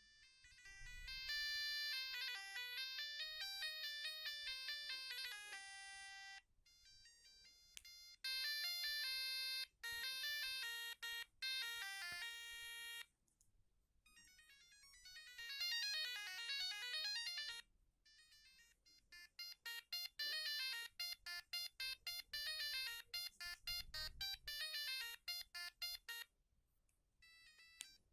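Siemens A50 mobile phone playing its built-in ringtones: a run of short, high electronic beeping melodies, one after another with brief pauses between tunes.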